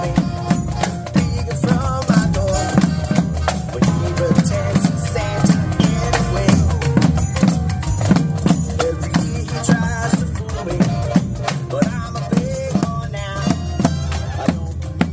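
Upbeat instrumental music with a steady drum beat, about two hits a second, under bass and melody lines.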